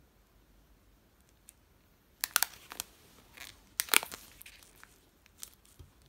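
Clear plastic wrapping being pulled and torn off a boxed book, crackling in short bursts that start about two seconds in, the loudest about four seconds in.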